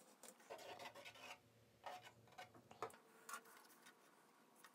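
Faint rubbing and a few light taps as hands handle strips of tape and press them onto a 3D-printed plastic wing.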